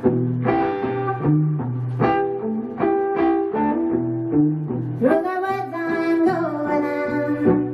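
Electric guitar picking out a melody of single notes, with a woman's singing voice coming in about five seconds in.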